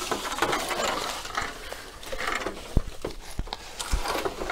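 Irregular crunching and rustling in dry leaf litter and brush, with a few dull thumps in the second half.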